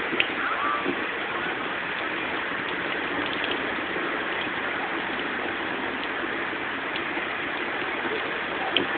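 Steady hiss of heavy rain, heard from inside a car, with a couple of faint clicks near the start and end.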